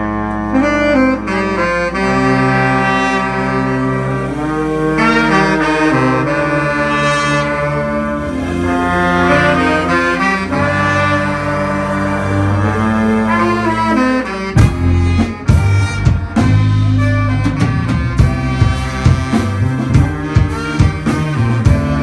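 Live band: a horn section of saxophone, trombone and trumpet plays a melody in harmony over bass. About fourteen and a half seconds in, the drum kit comes in with a steady beat and the full band plays.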